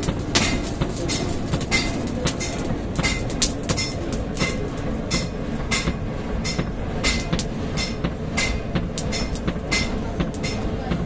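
Blacksmith's hammers striking hot steel on an anvil, about two ringing blows a second, over a steady low rumble.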